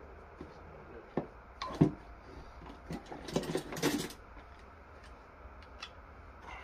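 Metal hand tools clinking and clattering as they are picked up and handled: a few separate knocks, the loudest about two seconds in, then a quick run of rattling clicks around three to four seconds in.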